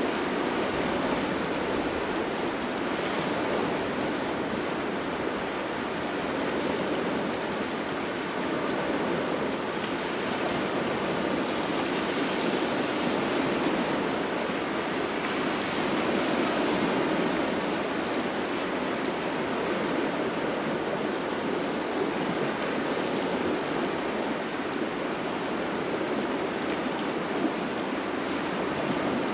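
Small waves washing onto a shore with a cold autumn wind blowing: a steady rush of water that swells and eases gently, a little brighter around a third and again around halfway through.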